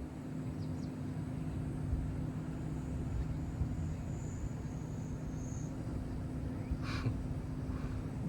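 Steady low outdoor rumble with a constant low hum, like a running engine or machine, and one brief high chirp about seven seconds in.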